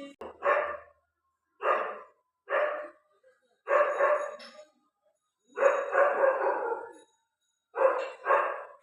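Dog barking repeatedly, about seven barks with short pauses between them, some of them drawn out.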